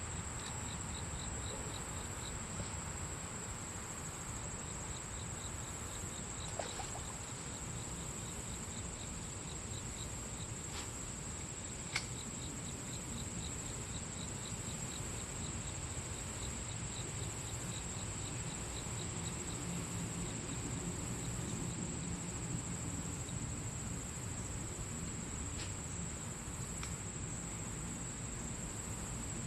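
Insects chirping at a creekside: a steady high buzz, with runs of cricket chirps at about four pulses a second that stop and start. A couple of sharp clicks, the clearest about twelve seconds in, stand out over low steady background noise.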